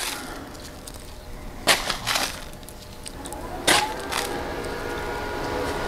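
Hand-twisted spice mill grinding a coarse seasoning blend, giving a few short crunching cracks, the first about a second and a half in and another near four seconds.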